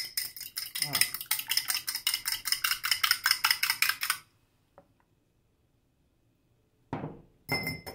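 A metal fork beating an egg in a small glass bowl: rapid, even clinking of metal on glass, about six strokes a second, for about four seconds. Near the end comes a short clatter of a few more clinks on glass.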